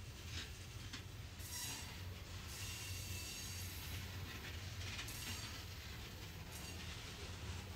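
Loaded ethanol tank cars of a freight train rolling past: steady low rumble of the wheels on the rails with hiss and clatter from the trucks, and a thin wheel squeal for about a second near the middle.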